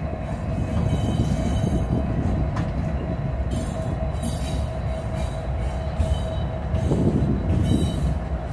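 Norfolk Southern freight train's diesel locomotives rolling past close by, a heavy steady engine rumble with a thin high steady tone over it. The rumble grows louder about seven seconds in as the second locomotive comes by.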